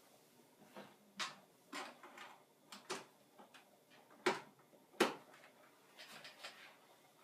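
Hands plugging a cable adapter into the back of a desktop computer: a series of light knocks and clicks, the two loudest about four and five seconds in, with faint rustling between.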